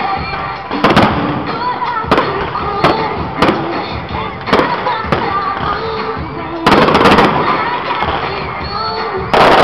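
Aerial fireworks shells bursting: a string of sharp bangs about every second, with a quick volley of bangs about seven seconds in and another loud bang near the end.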